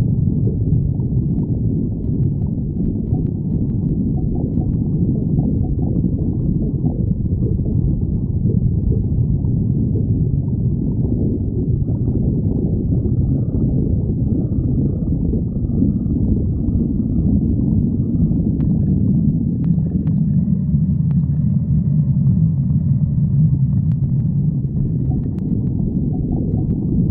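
A hungry stomach growling, heard close up: a continuous low rumble with a few faint clicks in the second half.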